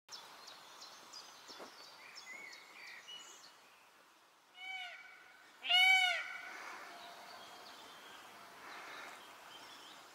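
Indian peacock calling twice, a short call and then, about a second later, a louder, longer one, each rising and falling in pitch. Small birds chirp faintly in the background.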